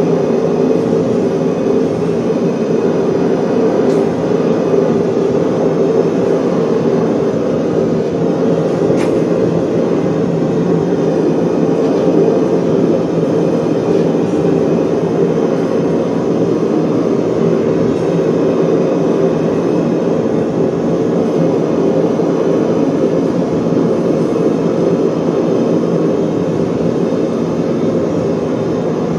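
Steady, loud roar of workshop machinery running without pause.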